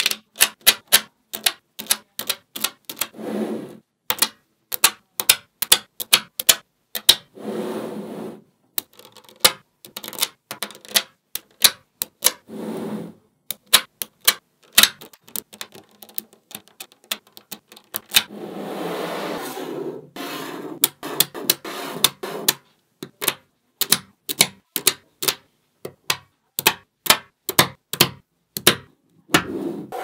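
Small magnetic balls clicking sharply as they snap onto one another, one click after another at an uneven pace, with a few short rattling stretches as rows of balls slide and roll together.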